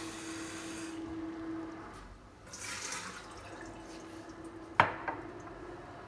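Kitchen faucet running water into a container at a stainless steel sink, shut off about a second in. A short splash of poured water follows a couple of seconds later, and a single sharp knock near the end is the loudest sound, over a faint steady hum.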